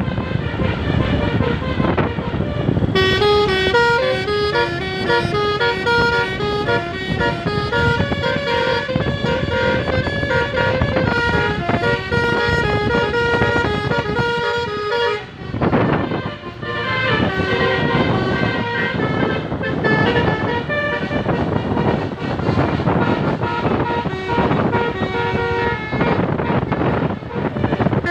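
Telolet basuri multi-trumpet air horn on a car playing a quick stepped melody over road and engine noise. The melody starts about three seconds in, breaks off briefly a little past halfway, then plays on.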